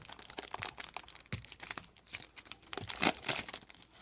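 Trading cards being handled and flipped through: a dense run of irregular crinkles and quick clicks, a little louder about a third of the way in and again near three seconds.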